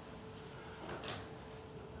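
A single brief tap of a stylus on an iPad's glass screen about a second in, as a dot is plotted, over quiet room tone with a faint steady hum.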